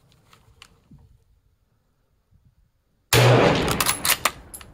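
A single rifle shot about three seconds in: a sudden loud report that rings on for about a second, followed by a few sharp clicks. Before it, faint clicks as the rifle's bolt is handled in the first second.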